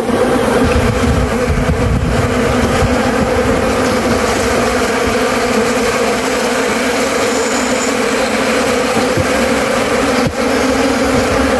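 A mass of honeybees buzzing in a steady, loud drone: the colony stirred up and driven from the hive with smoke during a transfer.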